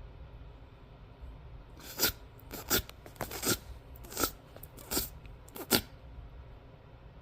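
A person making short mouth noises, about eight sharp smacking clicks spread over about four seconds, starting about two seconds in.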